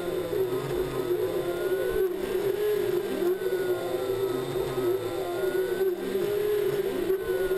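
3D printer's stepper motors running, whining with a steady tone and repeated rising and falling glides in pitch as the axes speed up and slow down.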